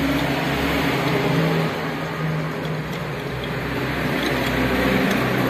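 The engine of another motor vehicle running close by, swelling, easing slightly and swelling again, with a few faint metal clicks.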